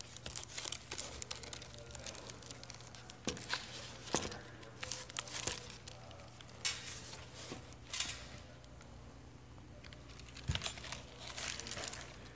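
Handling noise from a rugged ballistic-nylon tablet case being turned over in the hands: irregular fabric rustles and light plastic knocks that come in short clusters.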